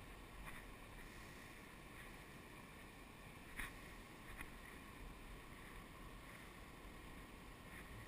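Faint, steady rush of a nearby waterfall on a river, with a few light clicks, the clearest about three and a half seconds in.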